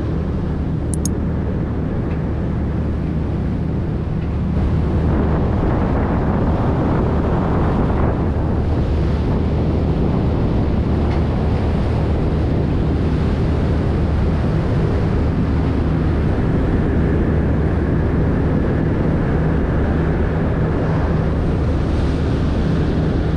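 A vessel's engines running with a steady low hum while under way, under wind buffeting the microphone and water rushing along the hull. The wind and water noise gets louder about four and a half seconds in.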